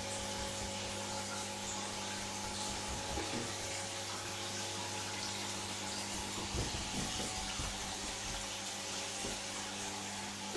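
Aquarium water bubbling and splashing steadily at the churned surface, over a steady low hum.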